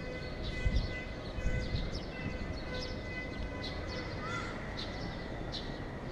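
Outdoor ambience: wind rumbling on the action camera's microphone, with the strongest gusts about a second in, and scattered short high bird chirps.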